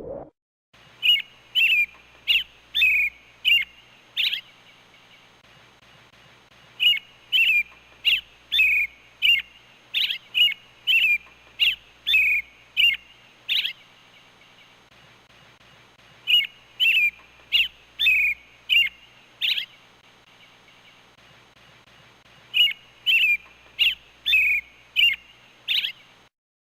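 Robin calling: short, sharp call notes repeated about twice a second, in four runs of six to a dozen notes separated by pauses of two to three seconds.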